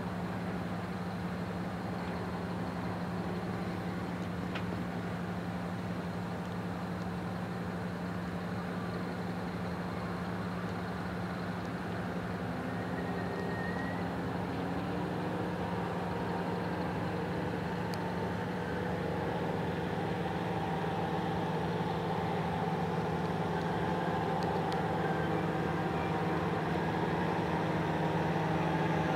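Steady drone of a powered paraglider's engine in flight, growing slowly louder toward the end as it comes closer.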